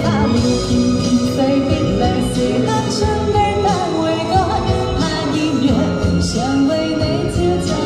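A woman singing a Chinese song into a handheld microphone, amplified through a PA, over backing music.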